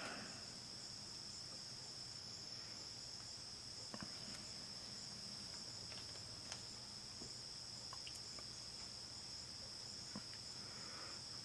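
A few faint, short clicks and rustles from a metal pick and fingers sorting through a plastic bag of small rubber drive belts, over a steady high-pitched background tone.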